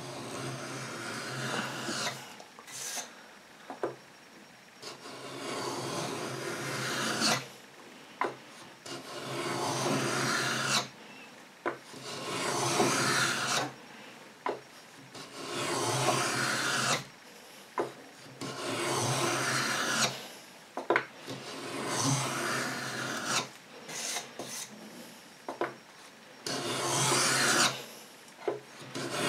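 Lie-Nielsen No. 66 beading tool's steel blade scraping a profile into a wooden strip in repeated strokes, each about two seconds long. Short clicks come between strokes as the tool is set back for the next pass.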